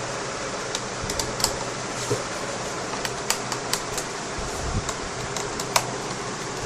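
Small screwdriver working the little screws out of a laptop's underside: irregular light clicks and ticks of metal on screw heads and plastic casing, over a steady fan hum.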